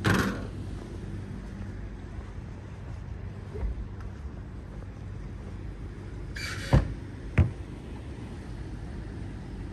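Steady low engine hum. It is broken by a brief rush at the start, then a hiss and two sharp knocks about seven seconds in.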